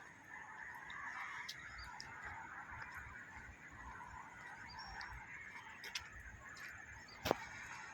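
A flock of birds calling continuously, many overlapping goose-like honks. A single sharp click or knock near the end.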